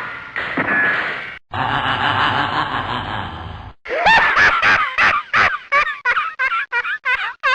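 Three short sound-effect clips played back to back with abrupt cuts. The first has gliding pitched tones and the second is a noisy stretch. The third, the longest, is a rapid run of short, high, pitch-bending yelps, about four or five a second, rather like a laugh.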